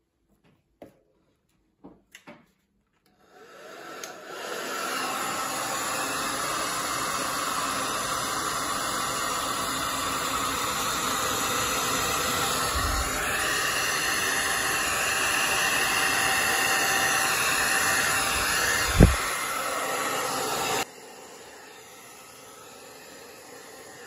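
A few faint clicks, then a Wazor 1875-watt hairdryer comes on and blows steadily with an even rushing noise, with one sharp thump about three-quarters of the way through. Near the end it drops suddenly to a much quieter blowing.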